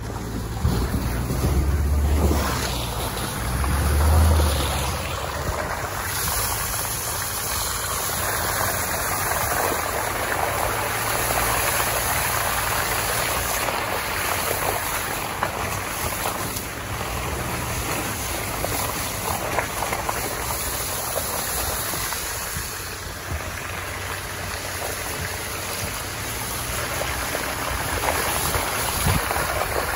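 Mud-terrain tires of a lifted Toyota Tundra running through slush: a steady wet hiss of slush thrown off the tread. Wind blows on the microphone held out of the moving truck, with two low rumbles in the first few seconds.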